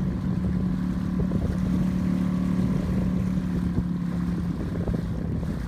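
Small outboard motor on an inflatable dinghy running at a steady speed, giving a constant hum over a low rumble; the hum grows weaker after about four and a half seconds.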